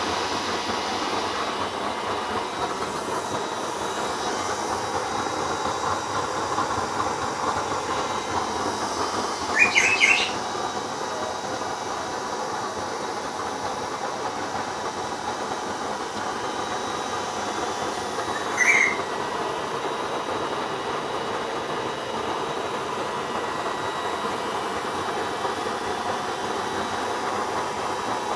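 Homemade used-oil stove burner running with a strong flame: a steady rushing hiss with a faint steady whine. Two brief high chirps sound about ten seconds and nineteen seconds in.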